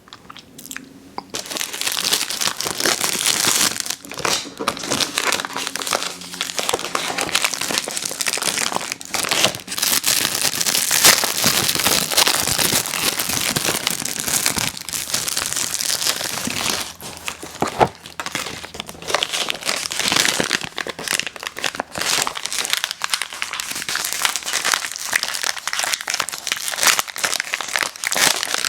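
Crinkling and tearing of plastic snack wrappers, with dense crackling and sharp clicks as the packaging is handled and opened.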